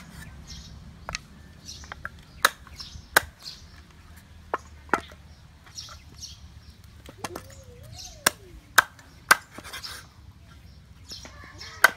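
Meat cleaver chopping a raw whole chicken on a wooden chopping board: about nine sharp chops at uneven intervals, several coming two or three in quick succession.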